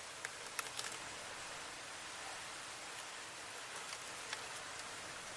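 Faint steady hiss, with a few light clicks and rustles in the first second and one more click about four seconds in, from a plastic-framed cabin air filter being handled.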